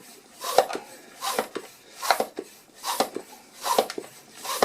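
Bicycle pump being worked in steady strokes, a short hiss of air with a click on each stroke about every 0.8 seconds, inflating a tubed mountain bike tyre to seat its bead on the rim.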